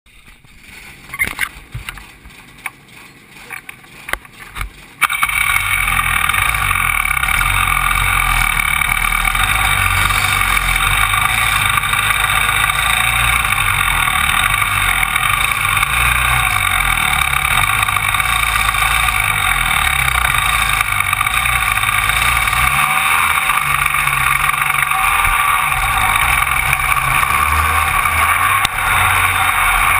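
A few faint knocks and clicks, then about five seconds in Rotax Max 125cc two-stroke kart engines start and run loud and steady as the karts move off.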